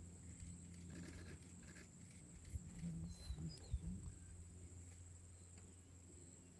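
Lions feeding at a buffalo carcass: faint growls and feeding noises, with a few short louder ones between about two and a half and four seconds in. Under them run a steady low hum and a thin high whine.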